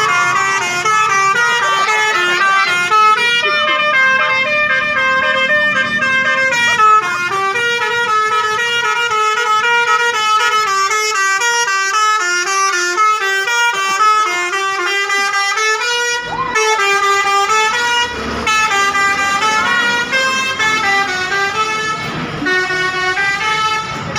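Bus 'telolet' horn, a multi-tone musical air horn, playing a quick tune of short stepped notes several times a second, on and on with only a brief break partway through.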